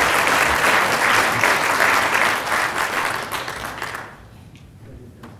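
Audience applause, dense many-handed clapping that eases slightly and then cuts off abruptly about four seconds in, leaving a quiet room with a few faint clicks.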